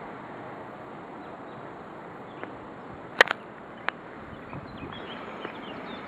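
Steady outdoor background hiss with faint bird chirps in the second half, and a few sharp clicks: the loudest a quick double click about three seconds in, with a single click just after.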